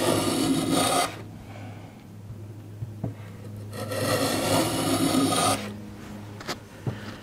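Small metal hand plane cutting along a rabbet in a hardwood board, tapering the rabbet's depth: two shaving strokes, each a rasping hiss of about two seconds, the first in the first second and the second about four seconds in. A couple of faint knocks follow near the end.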